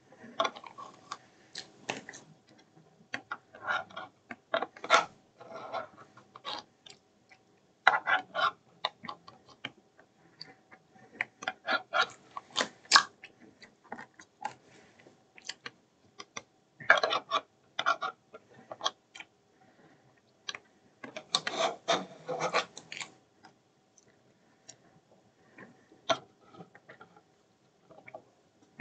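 Metal spoon clinking and scraping against a ceramic bowl while ice cream is eaten, with some chewing and mouth sounds. The clicks come in irregular bursts with quiet pauses between mouthfuls, over a faint steady hum.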